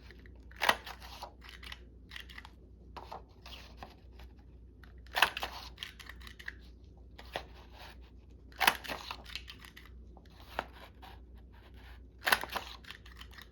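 Paper being worked by hand: four sharp, crisp paper sounds about three to four seconds apart, with light rustling and crackling between them.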